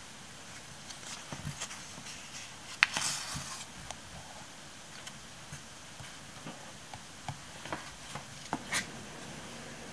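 Paper stickers being peeled off a sticker sheet and pressed onto a planner page: light paper rustling, a sharp click nearly three seconds in followed by a short papery rasp, and scattered small taps and clicks near the end.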